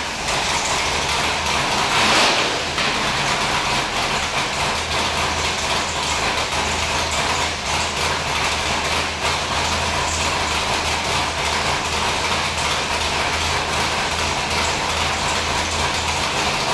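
582 cubic-inch V8 drag race engine running steadily on an engine dyno at idle, with a brief rise in level about two seconds in.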